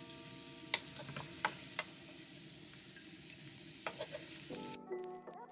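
Sesame chicken and rice cakes being stir-fried in a nonstick wok: a steady sizzle, with sharp clicks as the wooden spatula and spoon knock against the pan.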